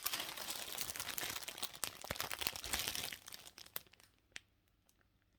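Packaging crinkling and rustling as a satin scarf is handled, with many small crackles for about four seconds, then a few soft clicks before it goes quiet.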